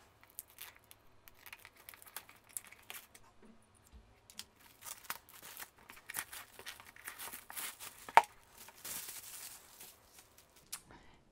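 Clear plastic shrink wrap being torn and peeled off a cardboard kit box, crinkling and crackling throughout, with one sharp snap about eight seconds in and a longer tear soon after.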